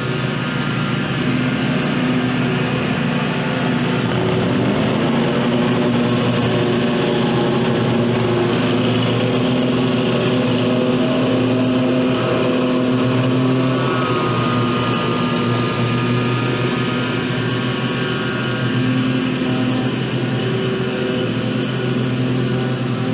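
Two Scag zero-turn riding mowers running at mowing speed, a steady engine hum whose pitch shifts a little as they turn and move about the lawn.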